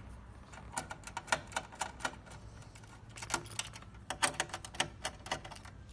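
Quick, irregular metallic clicks and ticks from a small screwdriver working the brass hex standoffs of a 9-pin D-sub connector on a sheet-metal case, in two bursts.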